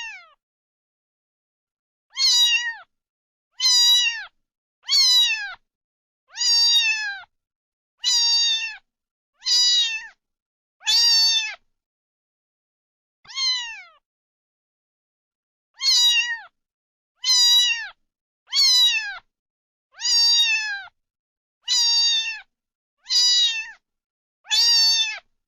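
A domestic cat meowing over and over, about one meow every second and a half, each meow falling in pitch, with two short pauses in the middle.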